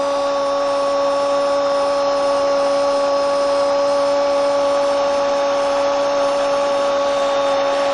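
Spanish-language football commentator's long held "goooool" shout after a goal, one unbroken note held steady at full voice, over stadium crowd noise.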